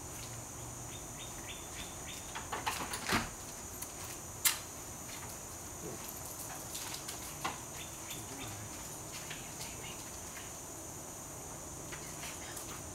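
Outdoor ambience: a steady high insect drone, with runs of short, high chirps from a bird. A few knocks around three seconds in and a sharp click a moment later.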